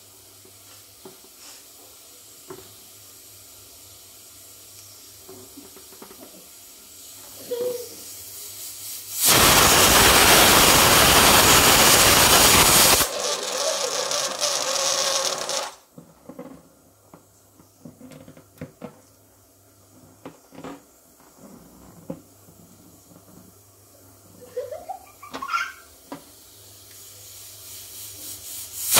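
Loud hiss of gas escaping under pressure, starting about nine seconds in and lasting about four seconds, then dropping to a quieter hiss that stops about three seconds later. Near the end, a short rising squeak.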